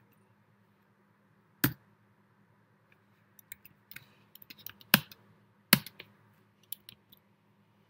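Computer keyboard keystrokes: a few sharp, separate key presses, one about one and a half seconds in and two close together around five seconds, among lighter taps. The keys save the file and quit the vi editor.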